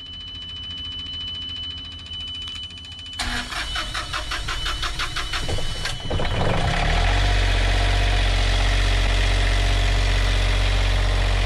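Westerbeke marine generator being started for a short run to circulate fresh oil into the new, empty filter. A steady high tone sounds, then about three seconds in the starter cranks rapidly for about three seconds, and the engine catches and runs steadily.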